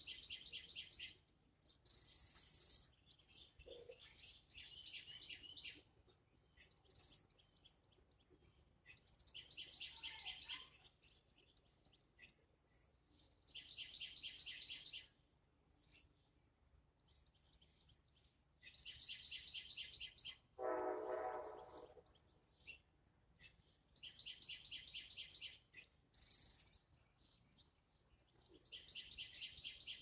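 A songbird singing: a short, fast trilled phrase of about a second, repeated roughly every four to five seconds, faint. About two-thirds of the way through, a lower, drawn-out sound of several pitches lasts about a second and a half.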